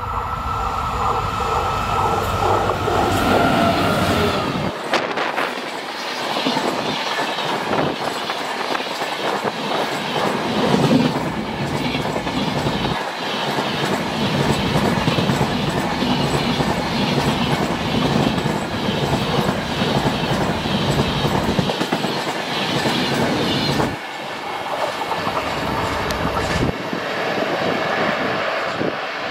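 WDP4 diesel locomotive's 16-cylinder two-stroke engine running hard as it climbs a gradient and passes close, with a steady high whine that drops in pitch about four seconds in. A long rake of passenger coaches then rolls past with a rhythmic clickety-clack of wheels over the rail joints, which fades as the train moves away near the end.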